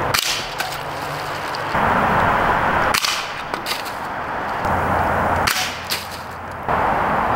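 Hatsan Striker .25-calibre break-barrel spring-piston air rifle firing three times, a sharp crack near the start, about 3 s in and about 6 s in. Hissing noise swells between the shots.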